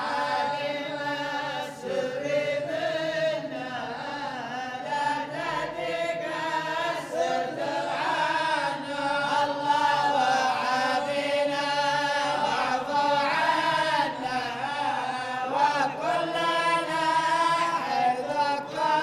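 A group of men chanting a Sufi devotional qasida without instruments, in long, drawn-out melodic phrases with no clear words, several voices overlapping.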